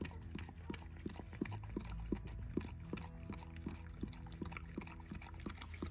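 A goldendoodle in labour panting in quick, even puffs, about two to three a second, as she pushes out a puppy. A steady low hum sits underneath.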